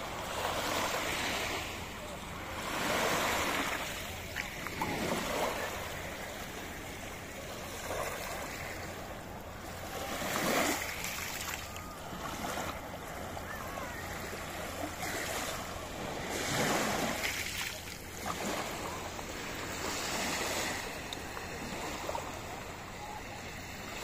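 Small sea waves breaking and washing up a sandy, pebbly shore at the water's edge. The wash swells every two to five seconds.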